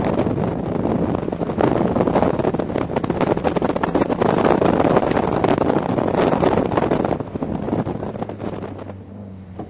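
Wind buffeting a microphone held out the open window of a moving Subaru STI, rough and gusty over the car's running noise. It dies down over the last couple of seconds as the camera comes back inside.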